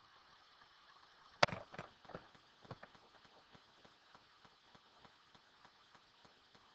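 Faint room noise with one sharp click about a second and a half in, followed by a few softer clicks over the next second or so.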